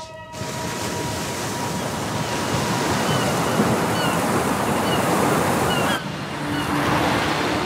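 Choppy sea surf and wind, with several short, high bird calls. About six seconds in, the sound drops abruptly to a quieter wash of surf.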